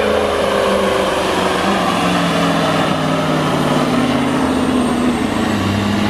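Black Mack Superliner's V-8 diesel labouring at full throttle while it pulls a weight-transfer sled. Its engine note slowly falls as the load builds.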